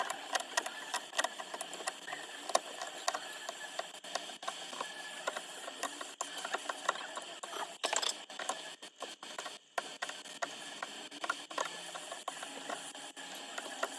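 Quick, irregular clicks and scrapes of small repair tools working on an iPhone 12 Pro Max's cracked back glass, over a steady hiss, with a few brief breaks in the sound about nine seconds in.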